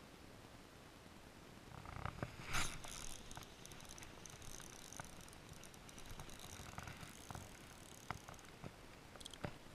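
Spinning reel being cranked close to the microphone: a soft whirring with scattered clicks and handling knocks, starting about two seconds in and loudest just after.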